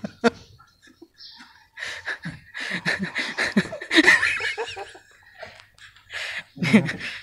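People laughing: a run of short, choppy bursts of laughter starting about two seconds in and lasting a few seconds, with another brief burst near the end.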